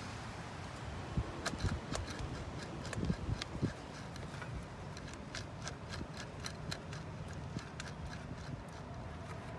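Front stub axle of a 2012 Ford F-350 being rocked by hand, knocking and clicking in its housing. A few low knocks come early, then a string of light metallic clicks, several a second. The clicks show the axle's excessive play, which the owner traces to a worn axle dust seal.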